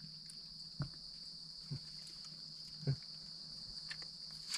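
Steady high-pitched drone of forest insects, with a few faint soft knocks about one, two and three seconds in.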